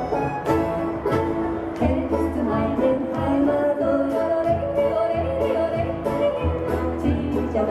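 Yodel song: a voice yodeling a melody over an instrumental backing with a regular bass beat.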